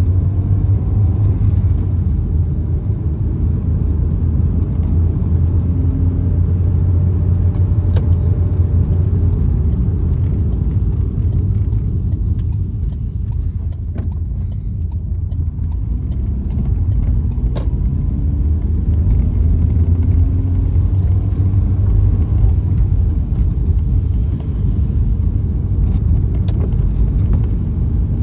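Car driving on a wet road, heard from inside the cabin: a steady low rumble of engine and tyres, with faint gliding engine tones as the speed changes and a few sharp ticks.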